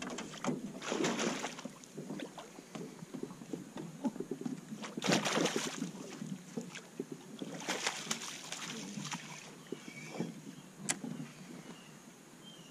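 Water splashing and sloshing beside a small wooden boat in three short bursts, with scattered light knocks.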